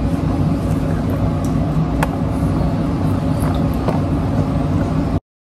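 Wire whisk stirring brownie batter in a plastic mixing bowl, with scattered light clicks, over a loud steady low rumble. The sound cuts off suddenly near the end.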